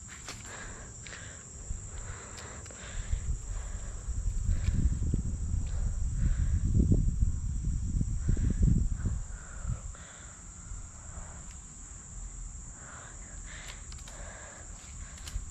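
Steady high-pitched trilling of insects in a chorus, with a louder low rumble in the middle of the stretch that fades away after about nine seconds.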